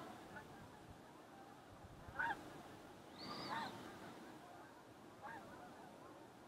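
Several short, faint bird calls a second or two apart, one of them longer and higher-pitched midway through, over a faint outdoor background.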